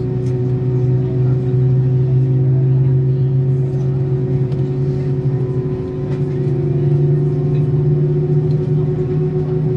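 Steady droning hum of a parked Airbus A319's machinery heard inside the cabin, with several constant tones; the low hum steps up in pitch about six seconds in.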